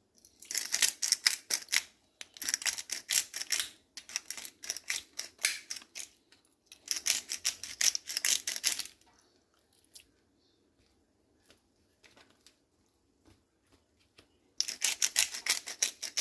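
Hand-twisted pepper mill grinding peppercorns in five bursts of rapid, rasping clicks, each about one and a half to two seconds long, with a long pause before the last.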